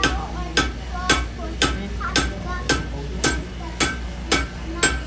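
Blacksmith's hammer striking metal on an anvil in a steady rhythm, about two blows a second, each with a short metallic ring.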